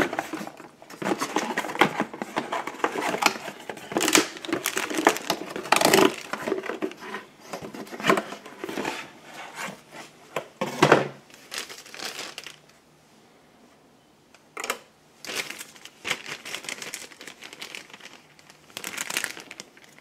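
Packaging being handled: a cardboard box and plastic wrapping crinkled and rustled in irregular bursts, with small taps and a pause of a couple of seconds past the middle, as the parts are unpacked.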